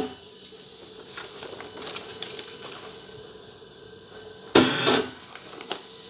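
Videojet 6530 DataFlex thermal transfer overprinter working through print cycles set off by an Arduino trigger. A faint steady mechanical whirr, then about four and a half seconds in a loud half-second burst of mechanism noise from a print stroke, followed by a smaller knock about a second later.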